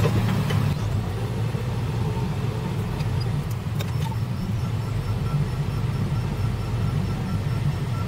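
Backhoe's diesel engine running steadily, heard from inside its cab while the machine is being operated; the engine note eases a little about a second in.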